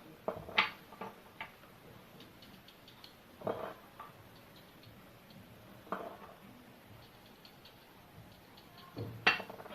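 Garlic cloves being pierced and dropped one at a time into a dry glass bottle: about half a dozen light clicks and knocks, several close together near the start and then single ones a few seconds apart.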